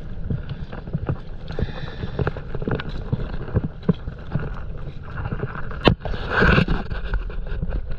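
Stand-up paddleboard being paddled through choppy water: irregular paddle splashes and water slapping against the board. About six seconds in there is a sharp knock, then a louder splash.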